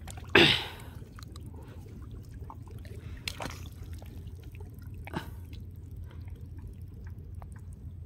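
Gloved hands digging into soft wet river mud to dig out a crab burrow, with a loud wet squelch about half a second in and softer squelches around three and five seconds.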